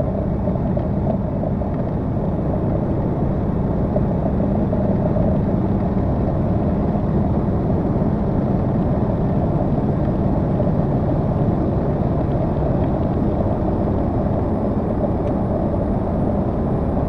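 Heavy truck cruising at highway speed, heard from inside the cab: a steady low drone of engine and road noise with no changes.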